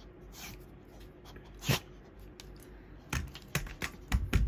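English bulldog sniffing and snorting in short sharp bursts, once near the start and then several times in quick succession near the end, the last ones the loudest.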